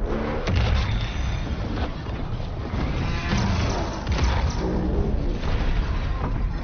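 Film action soundtrack: a dramatic score with heavy booms and crashing impacts layered over it.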